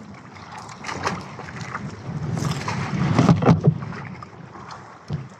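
Wind and choppy sea around a small outrigger fishing boat, with a cluster of knocks and clatter from the fisherman's handling on deck about three seconds in.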